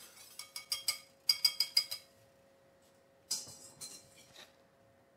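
Wire whisk clinking against a stainless steel saucepan of thickened strawberry sauce: a quick run of ringing metallic strikes over the first two seconds. About three and a half seconds in comes a second, shorter cluster of clinks as the pan is handled on the glass stovetop.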